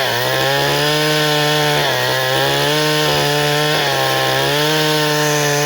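Two-stroke chainsaw running at full throttle while cutting wood. Its high engine note dips briefly and recovers about every two seconds.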